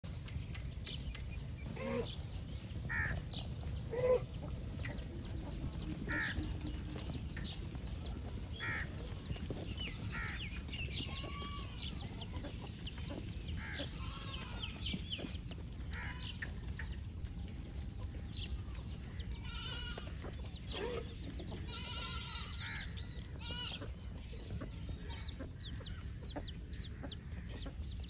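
Farmyard animals: chickens clucking and goats bleating now and then, short calls scattered throughout over a steady low background noise.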